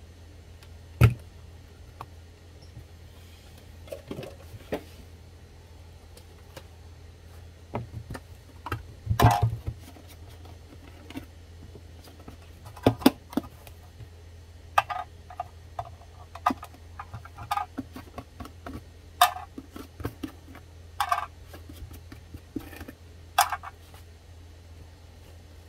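Irregular clicks, taps and knocks of small plastic ink cartridges and continuous ink system parts being handled, over a steady low hum. A sharp click comes about a second in and a louder cluster of knocks just after the middle.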